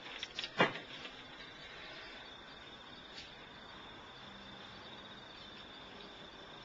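Crickets chirping steadily in night-time ambience, with one sharp knock about half a second in.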